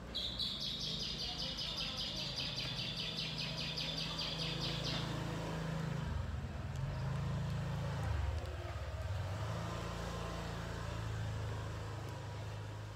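A cat purring steadily while being stroked. For about the first five seconds a fast, high-pitched chirping runs over the purr, then stops.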